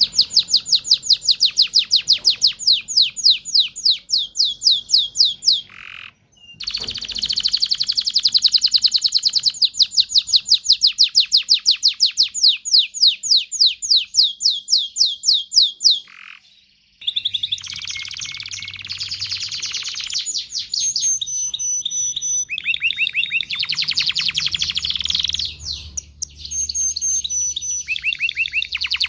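Domestic canary singing: long, loud trills of rapidly repeated notes, broken by two short pauses about six seconds and sixteen seconds in. After the second pause the trills turn faster and denser, with a few higher whistled notes mixed in.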